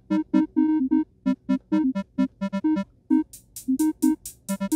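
Teenage Engineering TX-6's synth engine playing short, plucky oscillator notes in a random sequence, dry with no effects. About three seconds in, a fast, even hi-hat ticking from its drum engine comes in over them.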